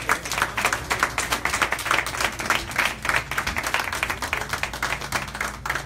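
A small group of people clapping in applause, a dense patter of hand claps that keeps up and then stops near the end.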